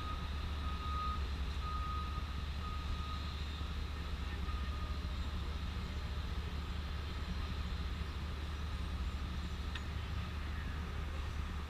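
A heavy vehicle's engine idling with a steady low rumble, while a reversing alarm beeps several times in the first few seconds and then dies away. A single short click about ten seconds in.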